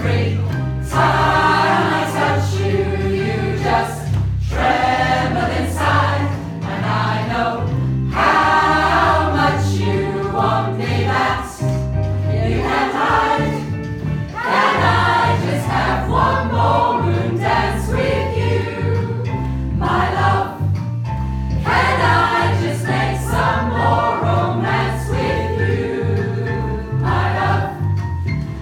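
Community choir, mostly women's voices, singing a song together in parts over a recorded backing track with a steady bass line. The singing is continuous, with brief breaths between phrases.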